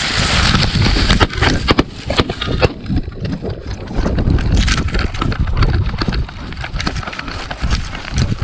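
Dry grass and brush scraping and rustling against a camera strapped to a running pointer dog, with low wind buffeting on the microphone and irregular knocks as the mount jolts. The scraping and knocks are densest in the first few seconds, while the dog pushes through thick cover.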